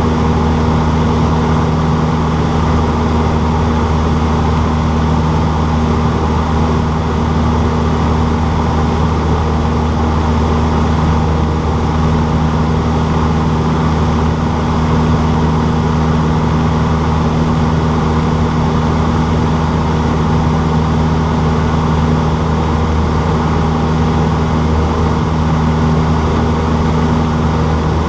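Cessna 152's four-cylinder Lycoming engine and propeller running at a steady, unchanging power setting, with a constant drone.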